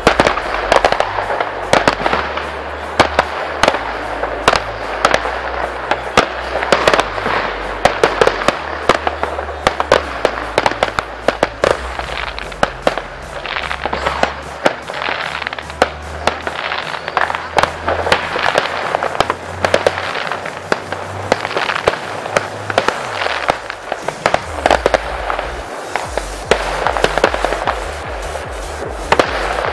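Aerial fireworks bursting in quick, irregular bangs and crackles, over electronic dance music with a stepping bass line whose even beat comes through near the end.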